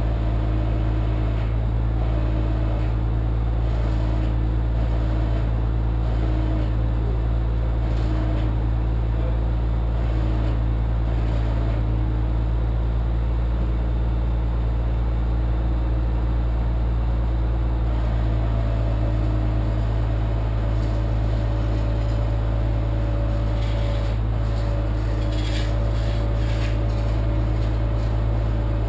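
A motor running steadily: an even, loud low drone with a faint higher whine that comes in about two-thirds of the way through.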